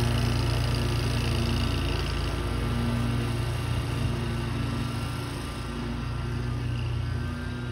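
John Deere zero-turn riding mower's engine running steadily under mowing load, a constant hum that grows somewhat fainter about five seconds in as the mower drives away.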